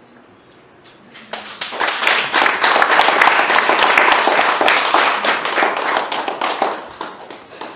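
Audience applauding: many hands clapping, starting about a second in, swelling, then fading out near the end.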